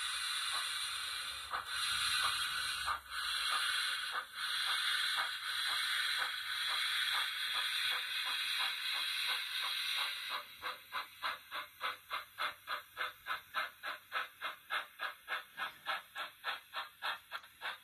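DCC sound decoder in a Rapido Trains Hunslet 16" 0-6-0 saddle tank model playing steam locomotive chuffing as the engine pulls away: slow, quickening chuffs under a steady steam hiss, then about ten seconds in the hiss stops and crisp chuffs carry on at about four a second.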